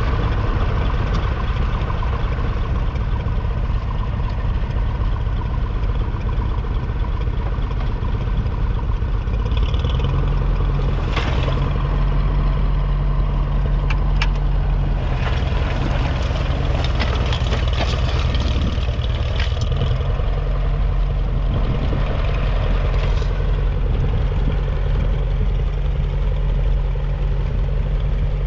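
Ferguson TED20 tractor's 2.1-litre four-cylinder TVO engine running steadily; its low note strengthens and shifts about ten seconds in, with a few short clanks in the middle stretch.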